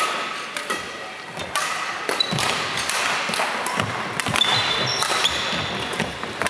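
Badminton play on a wooden sports-hall court: sharp racket strikes on the shuttlecock, including a jump smash about four seconds in, with feet thudding and shoes squeaking on the floor. The hall is echoing, with knocks from play on other courts.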